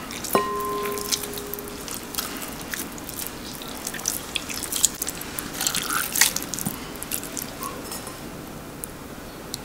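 Warm mozzarella curd being folded and squeezed by hand over a glass bowl: wet squelching and water dripping back into the bowl. Just after the start a light knock rings briefly, and the squelching thins out in the last couple of seconds.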